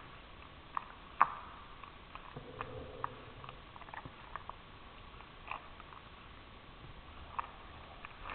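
A cat licking and chewing soft cooked squash from a metal spoon: scattered small clicks and smacks, the loudest about a second in.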